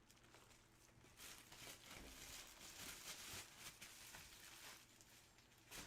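Near silence with faint rustling and crinkling of items being handled, and a single short click near the end.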